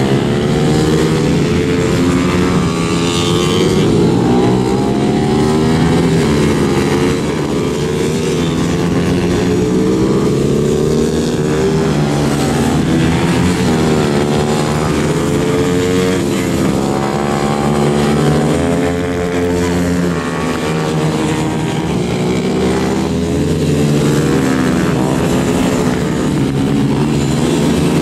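Several four-stroke geared race motorcycles running flat out around a tight track, their engines revving up and down through gear changes and overlapping as the bikes pass.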